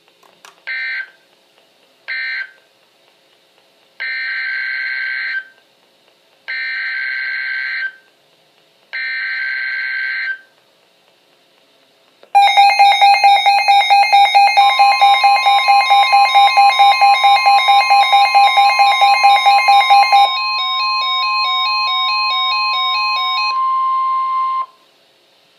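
NOAA Weather Radio SAME data bursts: two short screeching bursts of digital tones, then three longer ones about a second and a half each. Then the loud alert: a rapidly pulsing electronic beeping alarm with the steady weather radio warning tone sounding over it a couple of seconds later. The beeping changes pattern partway through, and both cut off together a second before the end.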